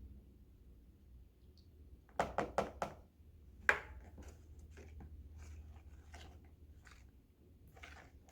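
Quick light knocks of a cup or utensil against a mixing bowl while liquid starch is added to a glue mixture: a fast run of four or five about two seconds in, one more a second later, then fainter ticks, over a low steady hum.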